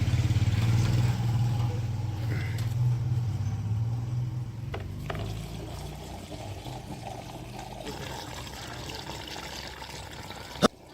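JCB 3DX backhoe loader's diesel engine running, loudest in the first few seconds and then fading steadily into quieter background noise. A single sharp click just before the end.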